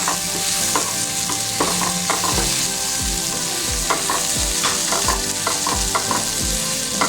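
A spatula stirring a tomato, shallot, ginger and garlic masala as it sizzles in oil in a pan: a steady frying hiss with frequent short scrapes and clinks against the pan, and from about two seconds in, regular dull knocks about two a second.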